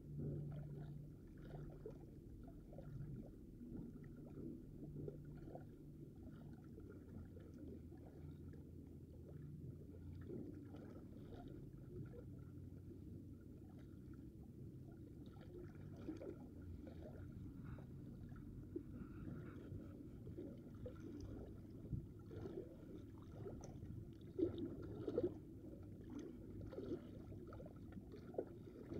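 Faint seaside ambience: a steady low rumble with a faint hum that comes and goes, and a couple of soft handling knocks near the end.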